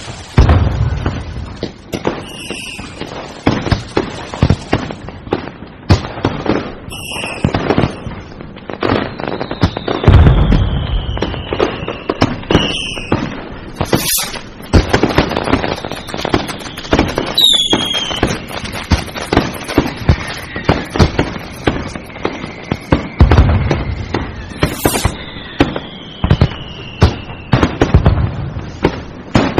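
Fireworks going off in a continuous barrage: rapid cracking and banging firecrackers with heavier booms now and then. Through it run whistling rockets, two of them with long whistles that fall slowly in pitch.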